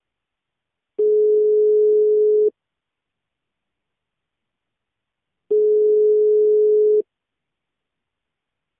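Telephone ringback tone heard on the calling line: a steady single-pitched tone sounds twice, each about a second and a half long, with about three seconds of silence between. It is the sign that the called phone is ringing and has not been answered.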